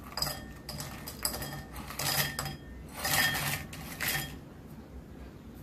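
Crisp fried namak pare, made from potato and semolina, tipped from a steel bowl into a white bowl: the hard pieces clatter and rattle against the bowl and each other in several short pours, stopping about four seconds in.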